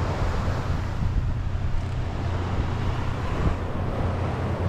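Wind buffeting the microphone: a steady low rumble, with surf washing behind it.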